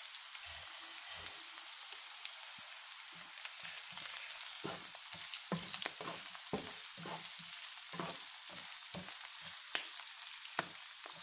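Sausage slices, chicken meatballs and carrots sizzling in hot oil in a coated wok while a wooden spatula stirs them. The sizzle is steady, and from about four seconds in the spatula's scrapes and taps on the pan come several times a second.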